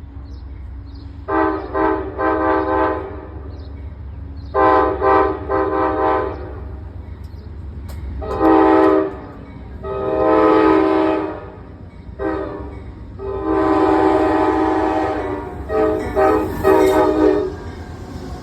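Amtrak Vermonter locomotive's multi-chime air horn sounded in a long series of short and long blasts, some broken into quick stutters and ending in three short toots, over the steady low rumble of the train.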